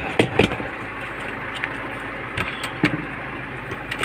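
Engine running with a steady low hum, under scattered sharp knocks and rustles from the phone being handled.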